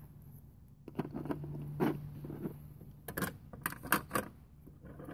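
Small play items being handled and put away: a string of light clicks, taps and knocks at irregular intervals.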